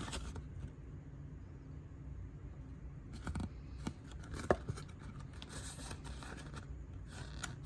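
Quiet handling noise: soft rustling and scraping with a few light clicks, one sharper click about four and a half seconds in.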